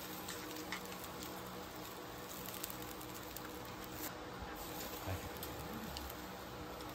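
Steady patter of rain, with a faint steady hum underneath and a few light ticks.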